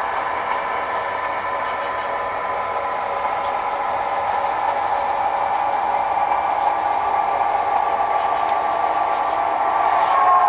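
HO scale model diesel locomotive's onboard sound system playing a steady engine sound with a few faint ticks, growing slightly louder, as the locomotive shoves cars back into the yard; a horn starts to sound near the end.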